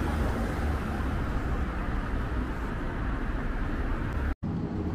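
Steady town-street noise of road traffic, with a low rumble. The sound drops out for an instant near the end.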